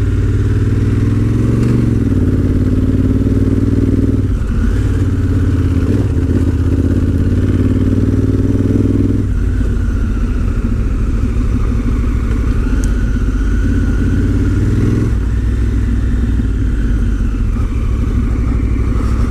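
Honda CRF1000L Africa Twin's parallel-twin engine running under way, held at fairly high revs in Sport 3 mode. The engine note shifts several times and changes clearly at about nine seconds and again at about fifteen.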